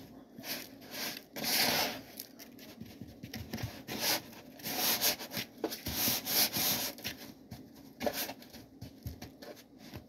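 Hands rubbing and turning pieces of boneless pork rib in brown sugar and barbecue dry rub inside a plastic bowl: irregular scraping and rubbing strokes against the bowl.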